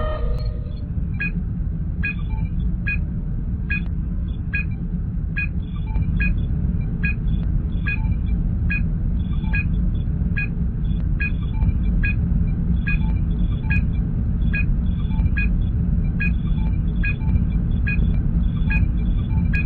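Star Trek starship ambience sound effect: a steady low engine rumble with a short electronic beep repeating a little more than once a second, like a sensor scan running.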